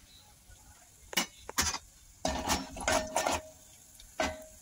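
A metal spoon stirring crushed coriander and cumin seeds in hot oil, knocking and scraping against the metal pot in several separate strokes, a few of them ringing briefly.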